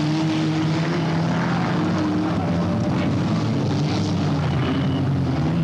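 Several stock-car engines running together in a steady drone, their pitch wavering slightly as the cars race and collide on the dirt.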